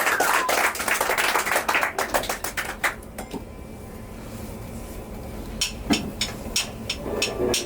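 A small audience clapping, dying away about three seconds in. From about five and a half seconds in comes a run of evenly spaced sharp clicks, about three a second: drumsticks clicked together to count in the next song.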